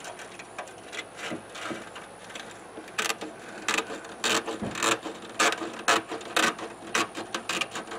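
Hand tin snips cutting through window screen mesh, a quick series of sharp crunching snips. The cuts are light at first and grow louder and more regular, about two a second, from about three seconds in.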